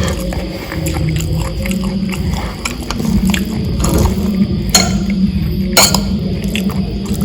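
Close-miked eating: chewing and mouth sounds under a dense low rumble, with small clicks throughout and two sharp clinks of a utensil on a plate, about five and six seconds in.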